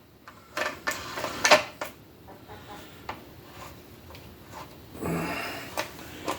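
Clicks, knocks and rubbing from plastic parts of a cordless pole saw being handled and fitted together by hand, with a sharp click about a second and a half in as the loudest. A short vocal murmur comes near the end.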